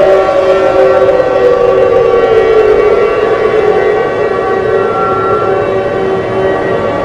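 Alert siren sound effect: a wailing siren tone slides down in pitch over the first three seconds and settles, over a layer of steady, horn-like chord tones. The level dips slightly about four seconds in.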